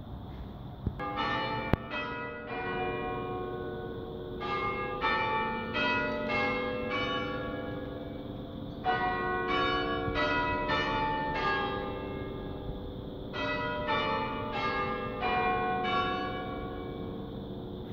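Norwich Cathedral's bells chiming a tune in four phrases, each a quick run of several strikes, the notes ringing on and overlapping between the phrases.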